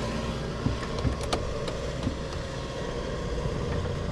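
An engine running steadily at low speed, with a few short sharp knocks about a second in.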